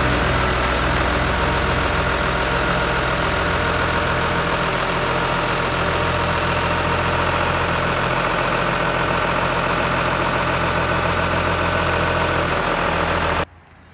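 New Holland farm tractor's diesel engine running steadily at idle, stopping abruptly near the end.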